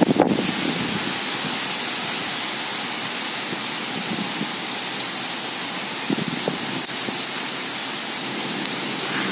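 Rain falling steadily: an even hiss with faint scattered ticks of drops.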